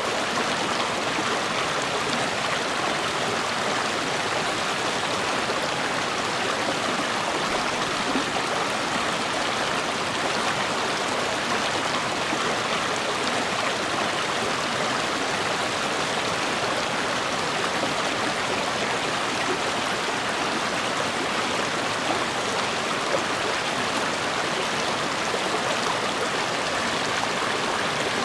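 River water flowing, a steady rushing wash of a stream over rocks.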